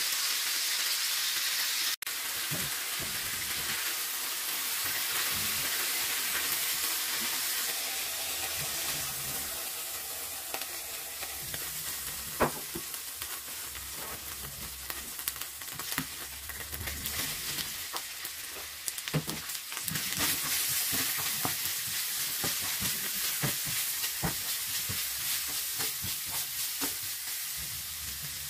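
Hot oil sizzling in a frying pan as pork steaks and sliced garlic fry, then red bell pepper strips. The sizzle cuts out for an instant about two seconds in, and through the second half it is broken by frequent sharp pops and crackles.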